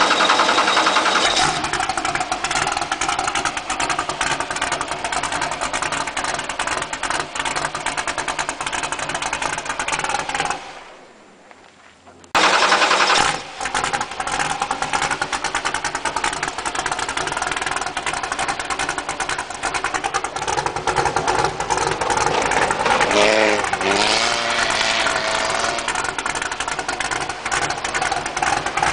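Off-road race buggy's engine running at idle with a dense, rapid rattle. About eleven seconds in the sound drops away for a moment and comes straight back.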